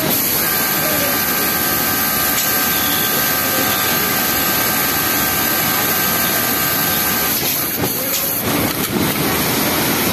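Yamato flatlock industrial sewing machine running at speed while stitching a T-shirt bottom hem, with a steady high whine that stops about seven seconds in. Steady mechanical noise runs underneath.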